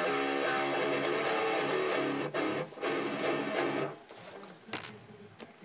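Distorted electric guitar playing a chugging metal riff, with two short stops about two seconds in, then breaking off about four seconds in. A few faint string noises and a brief scrape follow.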